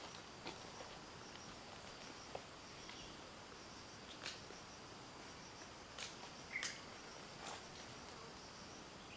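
Quiet outdoor ambience: a faint, steady high-pitched insect drone, with a few brief faint ticks scattered through the middle.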